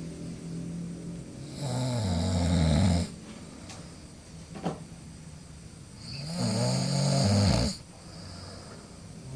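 A person snoring: two long, loud snores about four and a half seconds apart, each lasting about a second and a half, with a short click between them.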